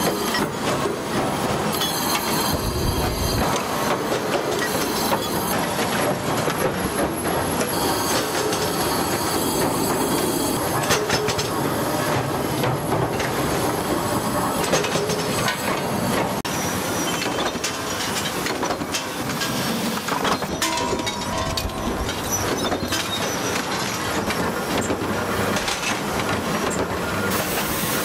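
Continuous metallic din of factory forging, trimming and machining equipment working copper valve bodies, with scattered clanks and knocks. There is a low thud about three seconds in.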